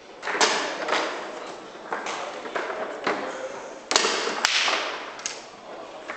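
Foosball play on an Ullrich table: sharp, irregular clacks and knocks as the ball is struck by the plastic players and the rods bang against the table, about seven hits, the sharpest two close together in the middle.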